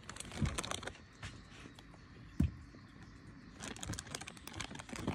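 Scattered light clicks and tapping from animals eating and moving about on a wooden deck, with two dull thuds, about half a second and two and a half seconds in.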